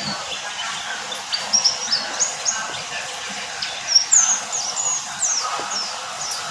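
A white-eye (pleci) singing a rapid run of short, high chirps, many of them falling in pitch, coming in two busy bursts over a steady background hiss.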